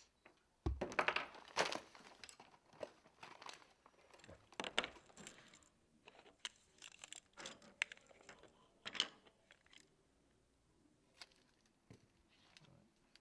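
Irregular rustling, scraping and light clicks of things being handled, busiest over the first five seconds and then sparser.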